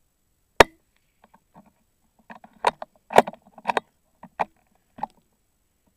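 .22 rimfire rifle shot: one sharp crack, followed over the next few seconds by a string of short clicks and knocks.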